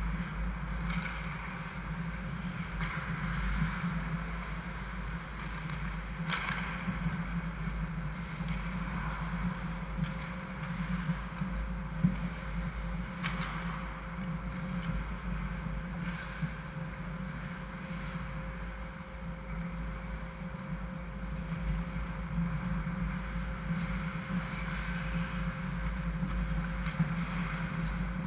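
Indoor ice rink ambience: a steady low hum with a faint constant tone, and a couple of faint sharp clicks from sticks or a puck at the far end of the ice.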